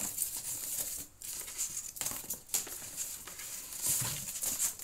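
Cardboard and paper packaging rustling and crinkling irregularly as boxes are handled and pulled out of a carton, with short pauses.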